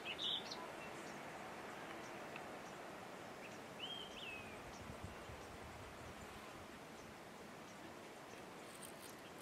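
Quiet outdoor ambience with a steady hiss, broken by a few short bird chirps at the very start and one brief slurred whistle about four seconds in.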